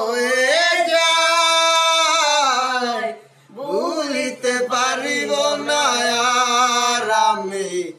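Male voice singing a Bengali romantic song, drawing out long, ornamented held notes. There is a brief break for breath about three seconds in.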